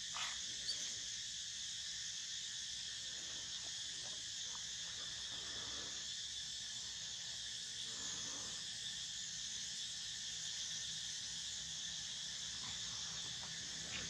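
Steady high-pitched drone of an insect chorus, unchanging throughout, with a couple of faint short sounds about half a second in.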